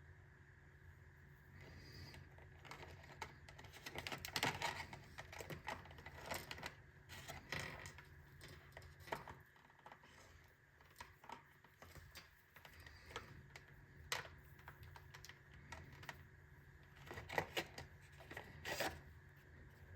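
Irregular clicks, taps and brief rustles of close handling, in clusters, loosest in the middle and thickest near the start and near the end.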